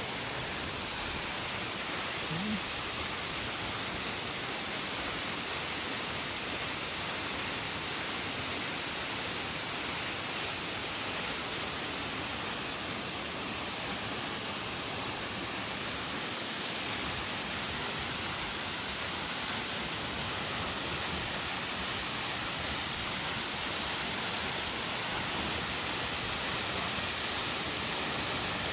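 Waterfall: falling water making a steady rushing noise, growing slightly louder in the second half.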